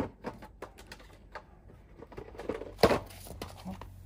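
Metal hand tools clinking and knocking as they are handled, with one louder clank about three seconds in.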